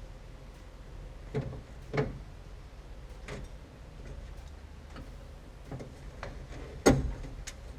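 A few separate clicks and knocks of small metal parts as the inside door handle of a 1970 Chevy C-10 and its spring retaining clip are worked with a hook pick, the loudest knock near the end, over a low steady hum.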